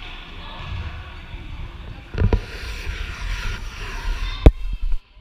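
Background chatter in a reverberant gymnasium, with a few sharp thuds and smacks: a pair about two seconds in and a louder single one about four and a half seconds in.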